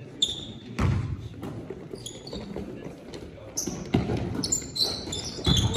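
Basketball bouncing on a hardwood gym floor in a reverberant hall, a few heavy thumps, with short high squeaks of sneakers on the floor and players' voices.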